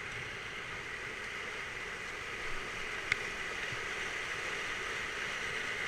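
River whitewater rushing steadily, growing slightly louder, with one sharp click about three seconds in.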